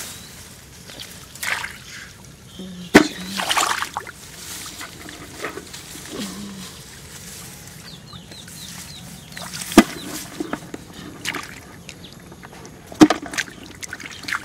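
Shallow water sloshing and splashing in short bursts, with three sharp knocks spread through it.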